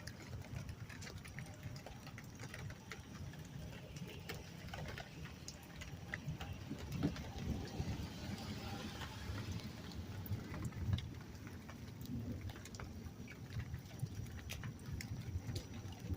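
Rain during a thunderstorm, with scattered sharp drips and taps over a low, uneven rumble; a hiss of heavier rain swells and fades about halfway through.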